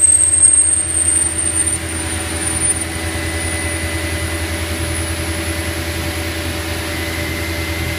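CNC lathe running, its tool turning the curved grip profile on an aluminium pen body: a steady hum with a thin high whine that rises slightly in pitch over the first couple of seconds and then holds. It is somewhat louder in the first second or so.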